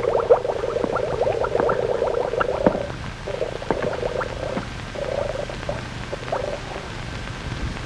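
Bubbling, gurgling underwater sound effect, dense for the first three seconds, then thinning to scattered gurgles.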